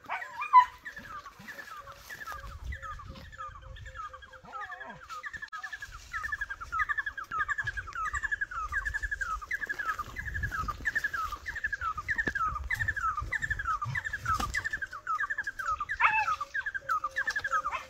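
An animal calling over and over, a short sharp falling note repeated about two to three times a second without a break.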